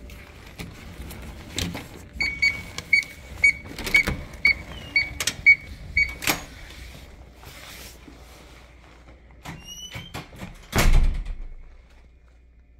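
Hotel room door's electronic keycard lock beeping about eight times, roughly twice a second, amid the clicks and knocks of the lever handle and latch. Near the end, after a brief squeak, the heavy door shuts with a thud.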